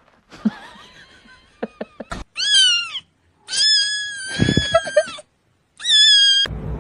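Cat meowing three times at a high pitch: a short rising-and-falling meow, then a long held one, then a short one. Small clicks and rustling come before the meows.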